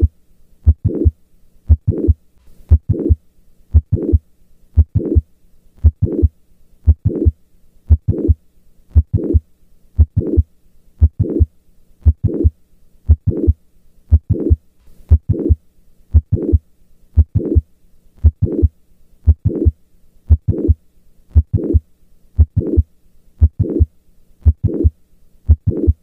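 Heart sounds over the cardiac apex in mitral valve prolapse: a regular beat about once a second, each beat a short sharp sound followed by a louder murmur, typical of the mid-systolic click and late systolic murmur of a prolapsing mitral valve.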